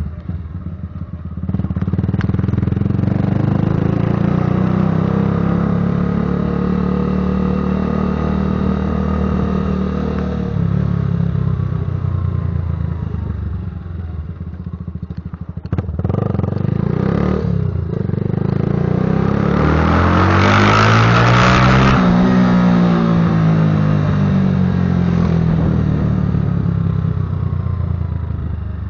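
Patagonia Eagle motorcycle engine and exhaust under way, revving up and easing off several times; the pitch climbs to its loudest about two-thirds of the way through, then falls away.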